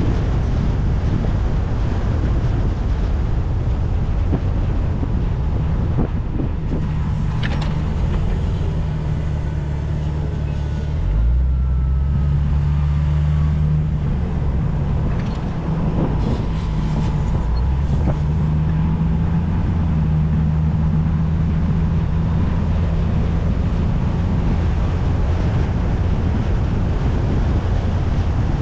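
Car driving through town: steady engine and road noise, with the engine note shifting a few times as the car speeds up and slows. Occasional brief knocks.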